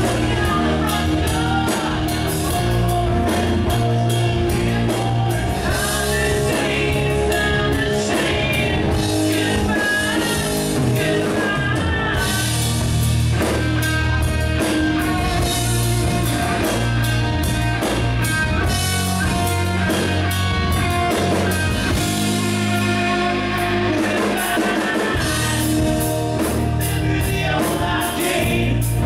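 Live rock band playing: a singer over electric guitars, bass guitar and a drum kit.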